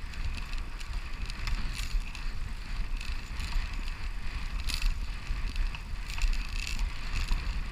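Brompton folding bicycle being ridden on pavement, with wind rumbling on the microphone and irregular clicks and rattles from the bike.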